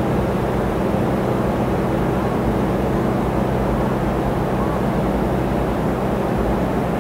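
Bank of air-conditioning outdoor units running inside an aluminium louvred rooftop enclosure: a loud, steady low hum made of several held low tones over a rushing of fan air. The uploader hears it as low-frequency noise pollution, suspecting resonance in the aluminium enclosure.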